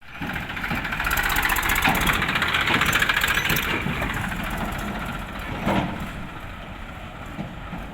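Tractor engine running, louder with a rattling edge for the first few seconds, then settling; a single knock about six seconds in.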